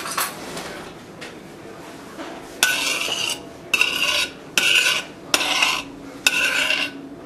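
A metal spoon stirring melting butter in a stainless steel saucepan. It scrapes around the pan in ringing strokes about once a second, starting about two and a half seconds in.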